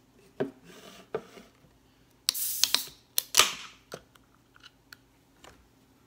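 Aluminium beer can being opened. A few light clicks as the pull tab is worked, then a crack with a short hiss of escaping gas about two seconds in, and a second, louder crack and hiss about a second later as the tab is pulled fully open.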